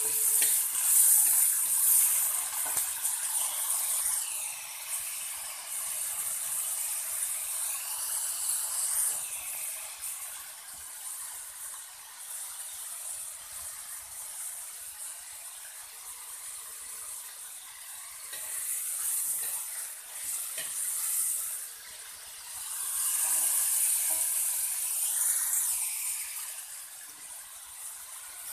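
Grasshoppers deep-frying in hot oil in a wok: a steady sizzle that swells and fades, as they are left to fry until they colour.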